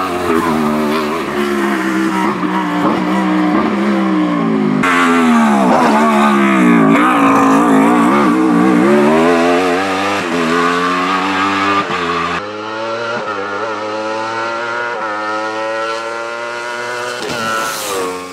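Wolf Thunder E2SS 1000 hillclimb prototype's 1000 cc motorcycle-derived engine revving hard, its pitch climbing and dropping again and again through quick gear changes and lifts for the bends. Near the end it sweeps past with a falling pitch and fades.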